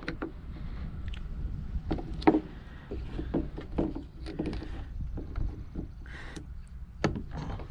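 Threaded PVC pipe fittings being screwed together and tightened with tongue-and-groove pliers: scattered plastic clicks, creaks and knocks of the fittings and the metal pliers, with a sharper knock about two seconds in and another near the end.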